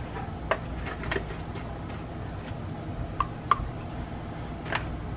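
Scattered light clicks and taps as a plastic spoon scrapes sweetened condensed milk from a metal can and spreads it in a foil pan, two of them with a brief ringing note near the middle, over a low steady hum.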